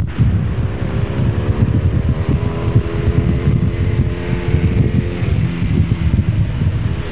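Motorcycle engines running, with wind buffeting the microphone in a dense low rumble. A steady engine note holds through the middle few seconds.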